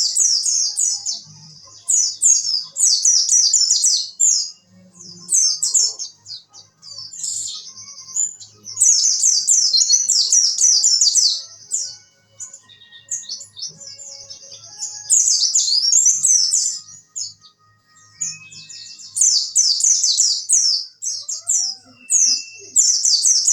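White-eye (pleci) singing its 'wit wit' song: bursts of rapid, high chirping trills, each a second or two long, repeated every few seconds.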